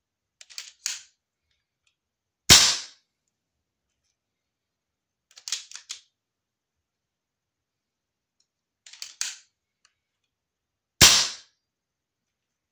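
Two shots from an air rifle, each a sharp crack, about eight and a half seconds apart. The pellets clock about 570 fps, roughly 11.5 ft-lb. Quieter clusters of small mechanical clicks come before the first shot and twice between the shots.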